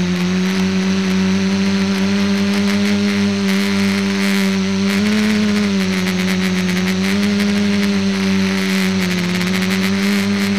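Electric motors and propellers of the ETFD2 flying-disc R/C multicopter in flight, heard close up from a camera carried on the craft: a steady buzzing hum whose pitch rises briefly about five seconds in and shifts a little again near the end as the throttle changes.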